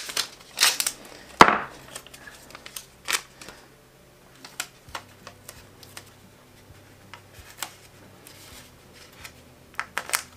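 Brown paper tape being handled and crinkled as it is shaped into a cone around the end of a vacuum hose. Scattered crackles and taps, the sharpest about one and a half seconds in, with a quicker run of them near the end.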